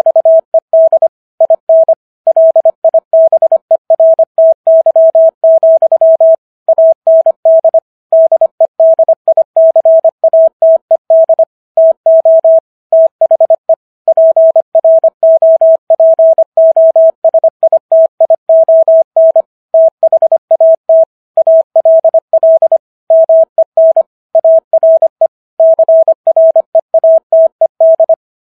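Morse code sent at 25 words per minute: a single steady beep keyed on and off in quick dots and dashes, with slightly longer gaps between words, spelling out the text of the Gettysburg Address.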